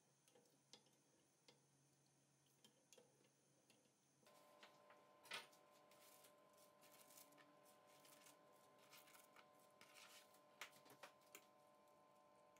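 Faint clicks and taps of a wooden spoon against a pot while soup is stirred. About five seconds in there is a short, louder brushing sound as cut cabbage slides into the pot. From about four seconds in, a faint steady hum sits underneath.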